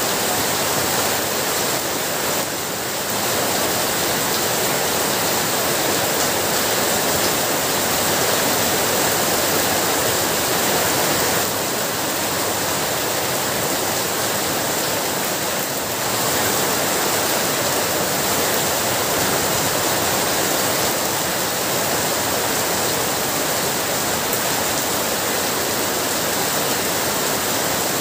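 Heavy rain pouring steadily, a dense, even rush of water with no breaks.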